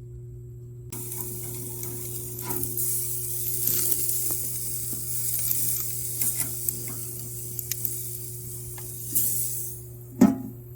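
Steak sizzling on a gas grill, a steady hiss with scattered pops and crackles that starts about a second in, over a steady low hum. A sharp knock near the end.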